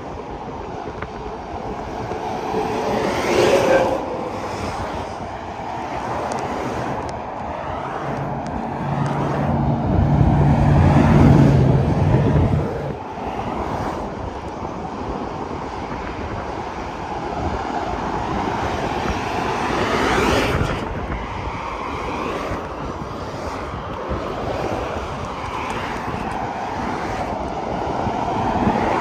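Highway traffic, semi trucks among it, passing on an interstate: tyre and engine noise swelling and fading as vehicles go by. The loudest pass comes about ten seconds in, with a low engine hum that cuts off suddenly just before thirteen seconds.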